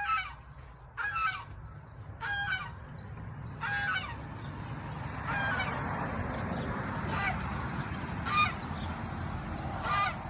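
Domestic geese honking: about eight separate honks, one every second or so. A steady rushing noise runs under the honks in the second half.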